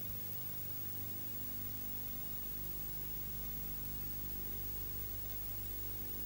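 Steady hiss with a low, even hum underneath: the background noise of an old recording, with no narration or music.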